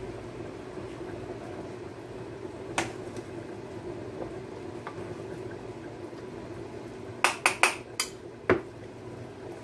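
A pot of chicken boiling steadily on the stove while a utensil knocks on the cookware: one clink about three seconds in, then a quick run of four or five clinks near the end as the chicken is turned.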